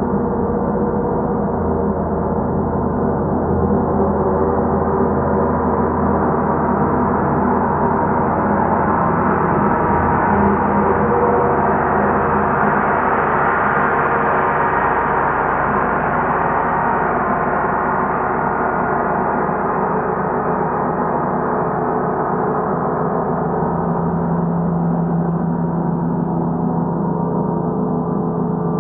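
Large suspended gongs played continuously with soft mallets, a dense, sustained shimmering wash of many overlapping tones. It grows brighter toward the middle and then mellows, with a deeper tone coming up near the end.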